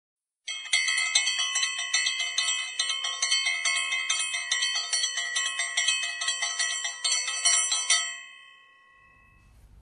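Intro jingle of bright bell-like chimes struck rapidly, several strikes a second, ringing together. They stop about eight seconds in and fade out.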